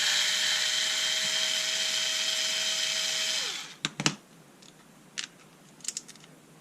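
Bosch Ixo cordless screwdriver running with a steady whine for about three and a half seconds, then winding down as the trigger is let go; a few sharp clicks follow.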